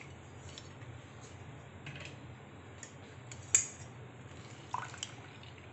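Metal hand-press lemon squeezer being worked over a jar of juice: a few light clicks, with one sharp metallic click about three and a half seconds in and a smaller one near five seconds, over a low steady hum.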